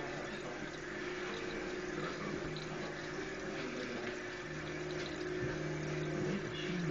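Aquarium filter running: steady water noise over a low, even motor hum.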